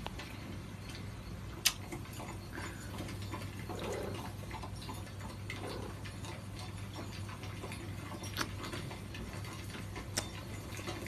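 Quiet room background with a steady low hum, broken by a few sharp, isolated clicks: one about two seconds in, another past the middle, and one near the end.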